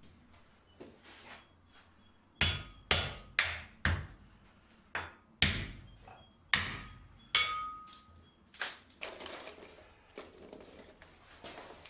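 Blacksmith's hammer striking steel on an anvil, about seven sharp blows with a short metallic ring after each, several in quick succession about half a second apart. Near the end, softer rustling and light knocks as paper and wood kindling are laid on the forge coals.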